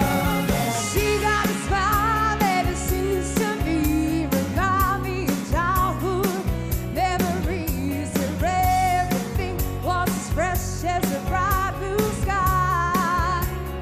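Live pop performance through a stage PA: a woman sings sliding, wavering vocal runs into a microphone over a band with a steady drum beat.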